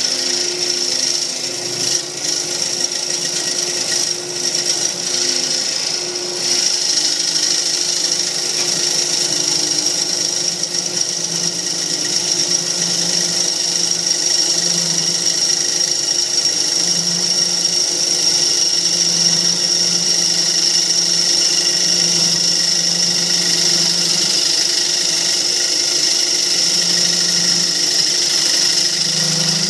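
Wood lathe running with a tool working a spinning mahogany bowl: a steady machine whine with a high hiss. It is uneven for the first few seconds, then even and a little louder from about six seconds in.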